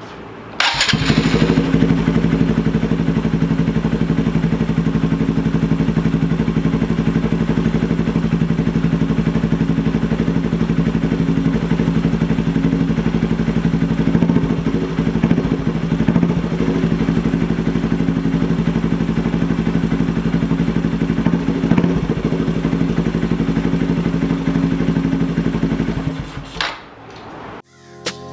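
A 2018 Honda Grom's 125cc air-cooled single-cylinder engine starting up and catching almost at once, then idling steadily on a short warm-up run to get the oil moving before draining. It is shut off near the end and runs down within about a second.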